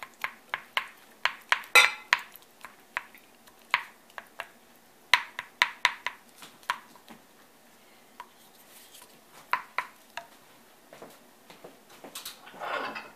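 Wooden spatula knocking and scraping against a glass pie dish while spreading a wet sticky rice mixture: a quick run of sharp knocks, thinning out after about seven seconds, with a few more knocks later and a short rustle near the end.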